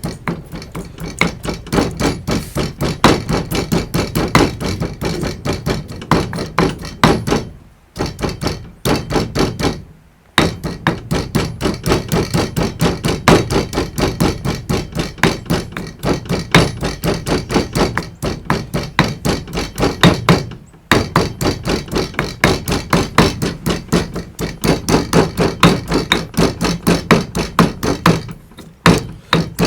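Granite pestle pounding garlic cloves in a granite mortar: a steady run of stone-on-stone knocks, about three strokes a second, with a few brief pauses.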